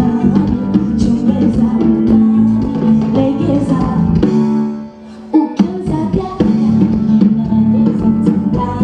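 Band music with singing and drums. The music drops out briefly about five seconds in, a single hit sounds, and the band comes back in.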